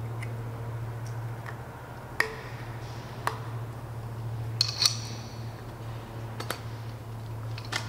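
Small clicks and metallic clinks of oxygen transfill hose fittings and their protective caps being handled and put back on, about one every second, with a brighter ringing clink just before the middle. A steady low hum runs underneath.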